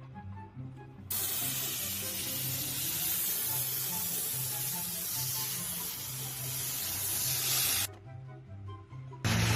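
A steady spraying hiss that starts abruptly about a second in and cuts off abruptly near the end, over background music with a repeating low bass pattern.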